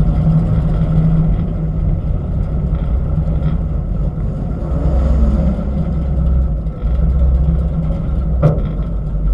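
Race truck's engine running low and steady at crawling speed, with one sharp click near the end.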